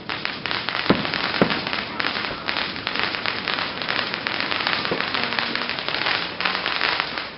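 Fireworks display: two sharp bangs in the first second and a half, then dense, continuous crackling that stops abruptly near the end.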